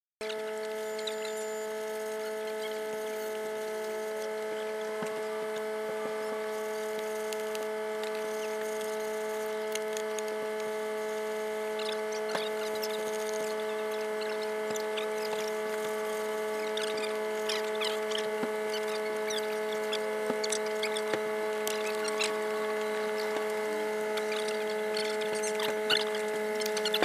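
A steady hum made of several even tones, with faint clicks and knocks over it and a few louder knocks near the end.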